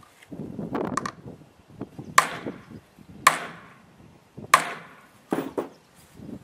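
Ball-peen hammer striking a snap-setting tool four times, about a second apart, driving a snap fastener together on a plywood board, each blow sharp with a short ring. Lighter knocks and handling come just before.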